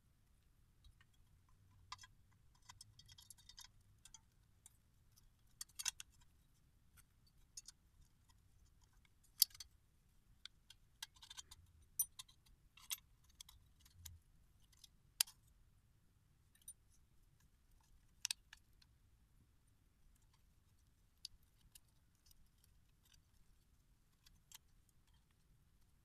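Small steel parts of a mortise door lock clicking and tapping as they are handled and fitted back into the lock case: faint, scattered clicks with a brief rattle of loose parts a few seconds in and a few sharper clicks later.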